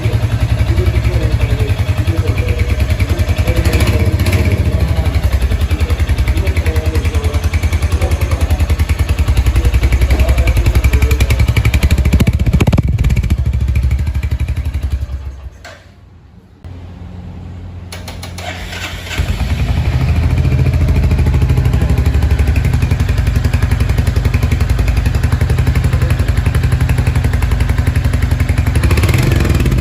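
Royal Enfield Hunter 350's single-cylinder engine running steadily through its exhaust, with a brief rev a little under halfway through. The sound then drops away for a few seconds and comes back at the same steady level.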